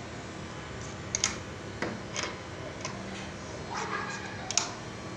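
Scattered light metallic clicks, about eight, as pliers turn a hex key in the brass liquid-line service valve of a split air conditioner's outdoor unit, closing it to pump the refrigerant down into the unit. A faint steady hum runs underneath.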